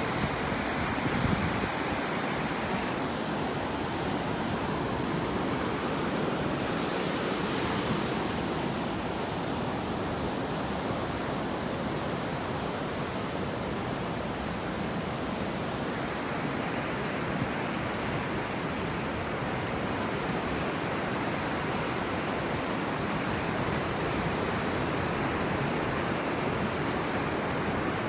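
Ocean surf breaking and washing onto a sandy beach: a continuous, even rush of waves with no single crash standing out.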